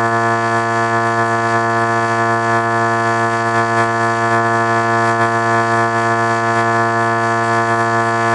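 Sustained electronic chord: a sound effect stacked into several pitches and held as one steady, unbroken drone, with no change in pitch or loudness.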